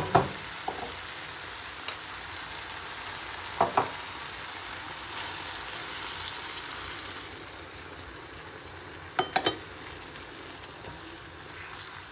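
Chicken and ground pepper sizzling in a frying pan as they are stirred, with a few sharp clinks of the stirring utensil against the pan: once at the start, then twice in quick succession, then twice more. The sizzle grows softer a little past halfway.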